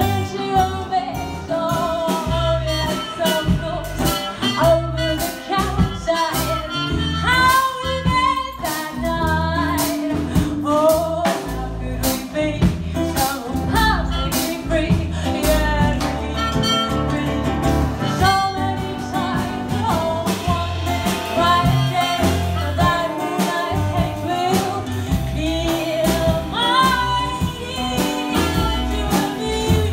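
Small live band playing a song: a woman singing lead over guitars and drums, with a trumpet in the line-up, recorded from the audience.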